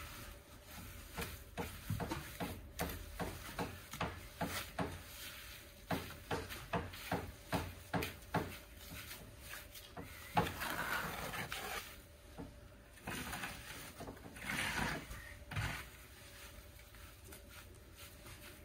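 Hand tools scraping and knocking on a soil and gravel bed: a run of short strokes about two a second, then a few longer scrapes in the second half.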